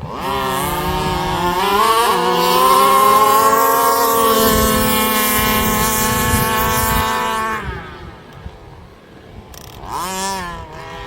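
Two small two-stroke petrol engines of 1/5-scale RC cars (30.5cc and 38cc) running at full throttle from a standing start, their pitch rising with a brief dip about two seconds in, then holding a high steady whine before dropping away sharply about eight seconds in.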